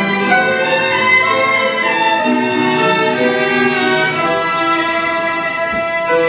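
Instrumental interlude of a slow song, led by a violin playing a melody over sustained string accompaniment.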